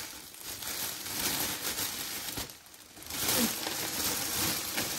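Clear plastic gift wrapping crinkling as it is handled and pulled open, in two stretches with a short lull about halfway through; the second stretch is louder.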